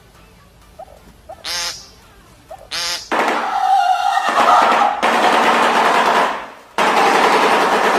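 A bird giving two short pitched calls, then a loud, harsh, rapid rattling that sounds machine-like, breaking off once and starting again.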